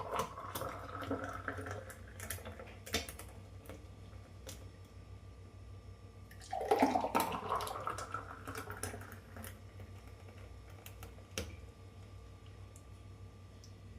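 Water or liquid splashing in two short spells, with scattered light clicks and knocks between them.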